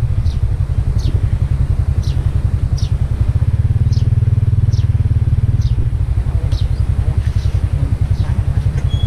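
A small engine running with a low, rapidly pulsing rumble. Over it, a short high falling chirp repeats about once a second, like a bird calling.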